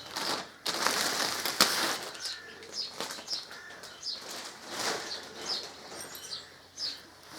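Packaging rustling and crinkling as a new windscreen is unwrapped, then a run of short high squeaks about two a second.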